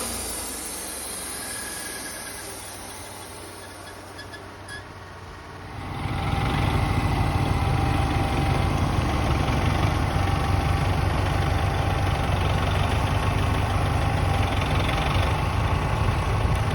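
Gasoline engine of a Wood-Mizer LT28 band sawmill running at a steady idle with a low rumble, coming in loud about six seconds in after a fainter stretch that fades out.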